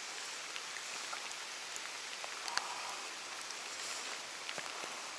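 Light rain falling: a steady hiss with scattered ticks of drops hitting the rain jacket and the water.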